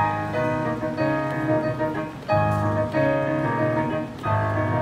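Grand piano played with full chords: sustained bass notes under a melody, new chords struck about once a second, with a brief pause about two seconds in and another near the end.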